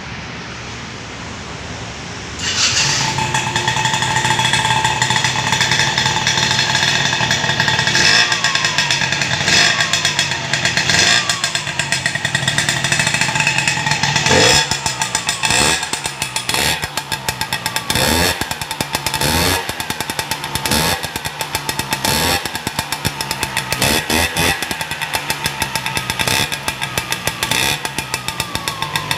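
Two-stroke 75cc Mallika automatic scooter engine breathing through a racing exhaust with a Ninja-style silencer. It comes up to a loud, buzzy run about two seconds in, then is revved over and over in short throttle blips, each one falling back. The blips come more often in the second half.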